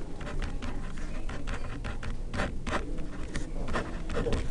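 Felt-tip marker writing on paper: a run of short scratchy strokes as a formula is written out.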